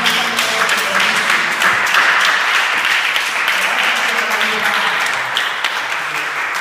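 A small group of dancers applauding, many hands clapping quickly and unevenly.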